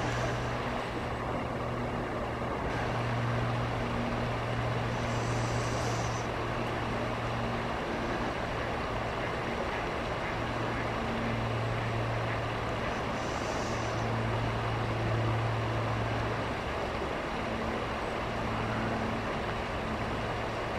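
Steady rush of shallow river water flowing over stones, under a low hum that swells and fades several times.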